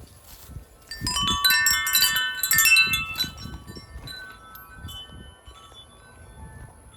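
Metal wind chime swinging in a gust, its tubes striking in a quick jangle of many overlapping ringing notes about a second in, then fading away as it settles.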